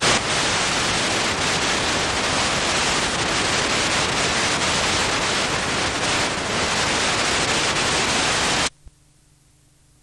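Loud, even static hiss from an unrecorded stretch of videotape. It starts abruptly and cuts off suddenly about nine seconds in.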